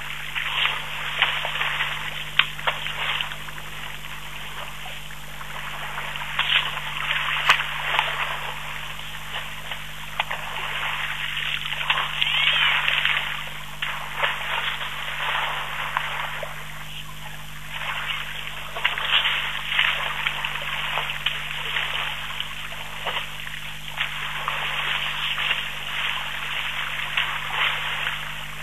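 Water splashing and trickling as elephant bulls drink and wade in a shallow waterhole, a steady rush of noise with frequent small irregular splashes.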